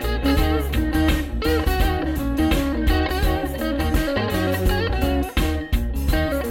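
Background music led by a guitar, with bent notes over a steady low bass line.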